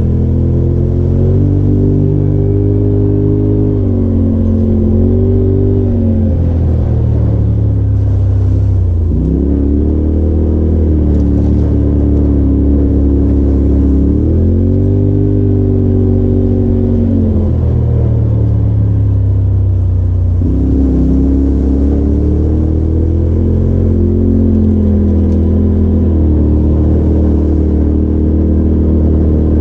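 Polaris RZR side-by-side's engine running under throttle, rising and falling in pitch several times as the machine is driven along a rough trail.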